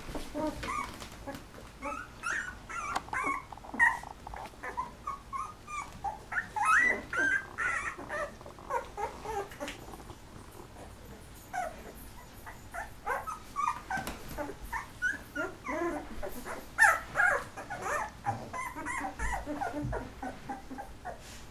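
A litter of 13-day-old golden retriever puppies whimpering and squeaking. Many short, high cries overlap, coming in busy spells with a sparser stretch near the middle.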